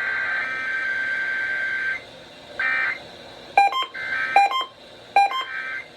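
Emergency Alert System digital header tones on a required weekly test broadcast: a steady, shrill data burst that cuts off about two seconds in, a short burst just after, then a run of sharp electronic beeps a little under a second apart.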